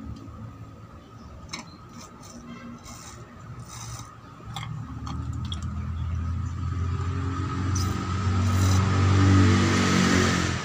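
A motor vehicle engine running close by, growing steadily louder from about halfway through, loudest near the end, then cutting off suddenly.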